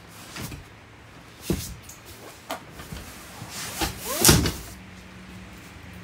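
A jackknife sofa in a motorhome is folded down flat into a bed. Its hinged frame and cushions give a series of clunks and knocks, the loudest about four seconds in, just after a brief creak.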